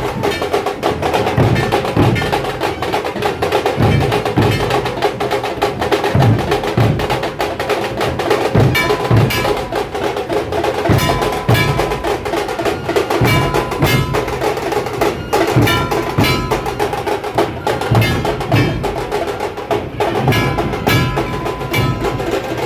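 Dhol-tasha troupe drumming: big barrel dhols beating a steady low rhythm under a fast, dense rattle of tasha stick strokes. A held high tone sounds on and off in the second half.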